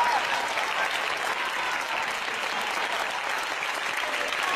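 Steady applause from the people around the court, with a few faint voices calling out near the start, as the players shake hands at the end of a badminton match.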